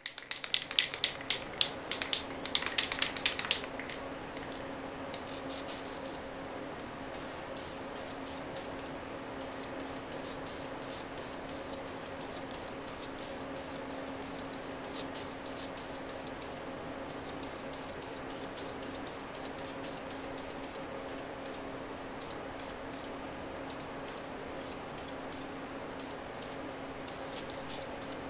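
Aerosol can of high-temperature satin black paint spraying in short, repeated bursts of hiss, over background music with a steady hum. The first few seconds hold louder rapid clicking.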